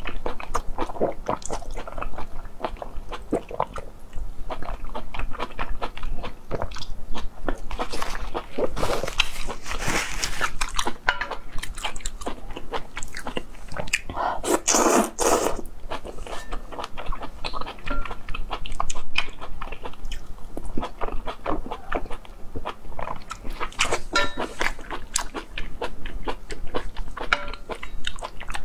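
Close-miked ASMR eating of soft, chewy stewed intestines in broth: continuous wet chewing and sucking clicks, with a loud slurp about halfway through as long strands are drawn into the mouth.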